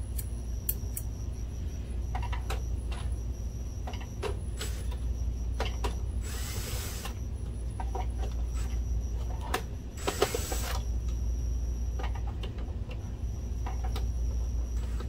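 DeWalt cordless drill/driver backing out case screws in two short runs, about six and ten seconds in, with light clicks of the bit and screws being handled between them.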